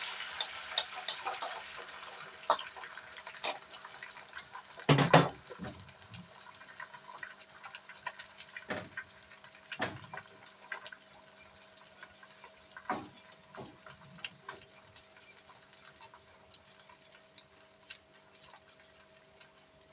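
Beaten egg mixture in a lightly oiled frying pan on very low heat: a soft hiss at first that fades within a couple of seconds, then faint scattered ticks and crackles, with a few louder knocks of a utensil or the pan.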